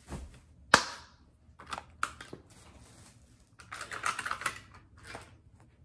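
Handling noises from hands working with ribbon and tinsel craft materials: scattered sharp clicks and rustles, with one loud click near the start and a denser flurry of rustling around the middle.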